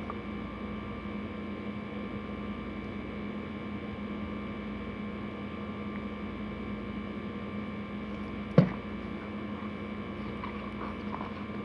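Steady electrical hum made of several even tones, with one sharp click about eight and a half seconds in.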